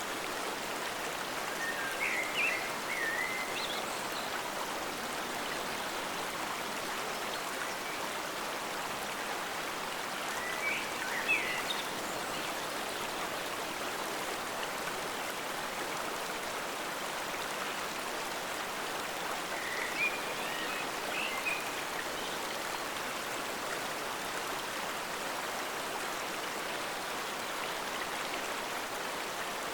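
Forest stream flowing steadily, an even rushing of water. Short high chirps come three times, about ten seconds apart.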